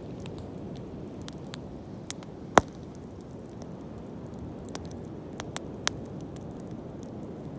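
Wood bonfire burning with a steady low rush, broken by scattered crackles and pops: one sharp loud crack about two and a half seconds in, and a few smaller pops a little after five seconds.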